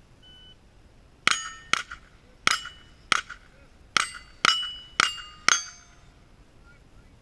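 .22 rimfire rifle fire on steel targets: eight quick shots in about four seconds, each followed by the brief metallic ring of a steel plate being hit.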